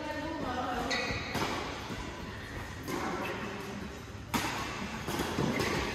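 Badminton rackets striking a shuttlecock during a doubles rally: a series of sharp hits roughly a second apart, echoing in a large hall.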